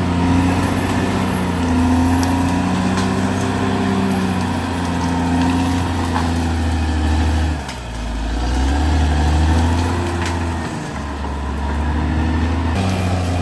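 Caterpillar D6R XL bulldozer's diesel engine working under load, its pitch rising and falling; the note sags sharply about eight seconds in and then climbs back up.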